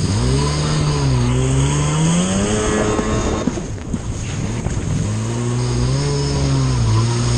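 Racing jet ski engine running hard, its pitch rising and falling with the throttle. It drops away briefly midway, then climbs back, over the hiss of water and spray rushing past the hull.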